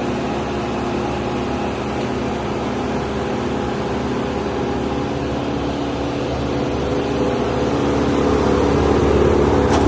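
The engine of heavy tree-removal machinery running steadily at a constant pitch, growing somewhat louder over the last few seconds.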